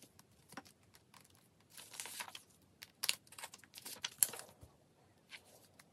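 Clear plastic 9-pocket binder pages and card sleeves crinkling and rustling as sleeved photocards are slid out of and into the pockets, in a scattering of short, soft rustles.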